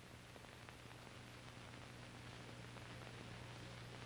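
Near silence: faint steady hiss with a low hum, the background noise of an old film soundtrack.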